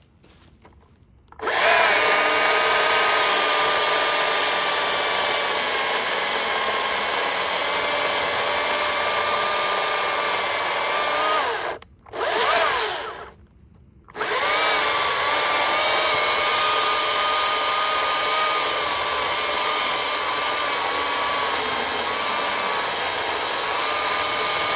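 Stihl MSA 230 battery chainsaw, powered by an AP 300S battery, running with a steady high whine while cutting wood. It starts about a second and a half in and stops about halfway through. It briefly spins up and down, then runs steadily again.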